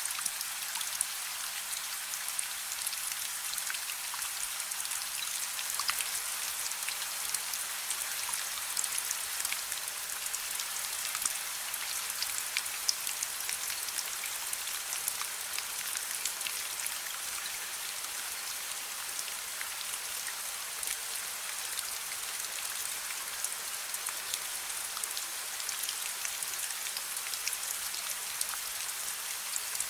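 Steady rain falling, a dense even hiss studded with many small sharp ticks of drops.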